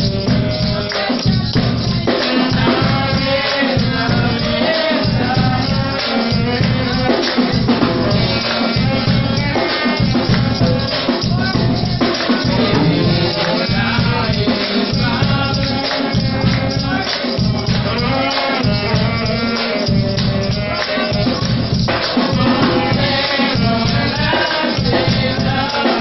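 Congregation singing together to a steady beat, accompanied by shaken rattles.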